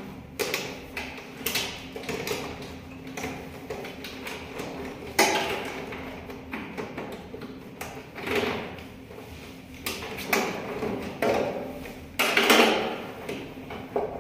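Wires being handled inside a metal electrical control panel: cable rustling and scraping with scattered clicks and knocks against the enclosure, louder rustles about five, eight and twelve seconds in.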